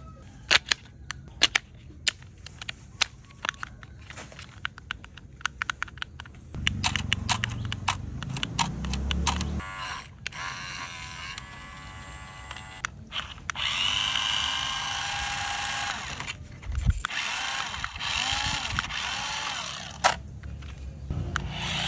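Toy remote-control sports car: a run of sharp plastic clicks and snaps as it is handled, then its small electric motor whirring in several runs that rise and fall in pitch.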